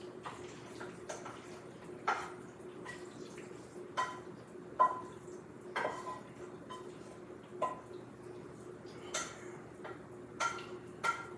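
A utensil clinking against cookware, a sharp clink about once a second, as cheese is stirred into the mac and cheese. A steady low hum runs underneath.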